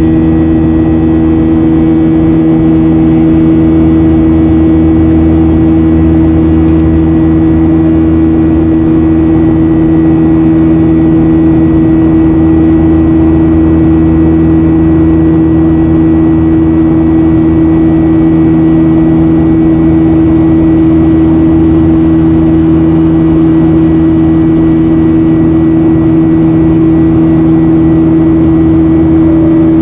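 Boeing 737-800's CFM56 turbofan engines at climb thrust, heard from inside the cabin: a loud, steady drone with a buzzing hum of several fixed tones over the rush of air. This is the CFM56 "buzzsaw" sound.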